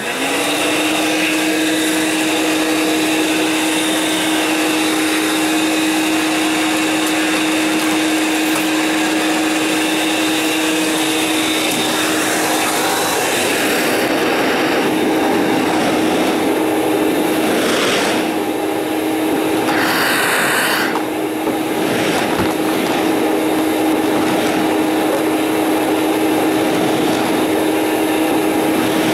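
An old Hoover Portable vacuum cleaner switches on and runs steadily, its motor giving a constant whine over the rush of air. The airflow sound changes a few times, about halfway through and again about two-thirds of the way in.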